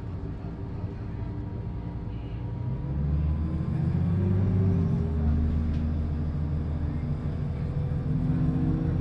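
A 2005 New Flyer D40LF transit bus's Cummins ISL diesel engine idling at a standstill, a steady low running sound that gets louder about three seconds in.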